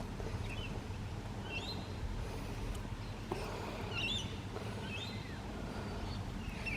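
Small birds chirping outdoors, several short high calls about a second apart, over a steady low background rumble.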